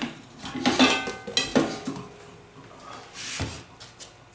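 An aluminium cooking pot and a utensil clatter and scrape as a freshly baked loaf is worked loose and turned out of the pot. Several knocks with brief metallic ringing come in the first couple of seconds. A dull thump follows about three and a half seconds in.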